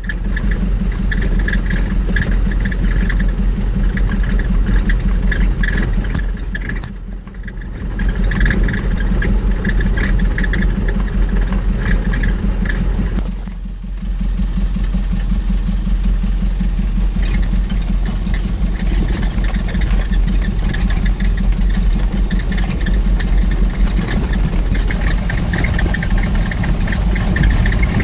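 A vehicle driving on a gravel road, heard from on board: a steady engine rumble mixed with rattling road noise. It eases off briefly twice, about a quarter and half way through.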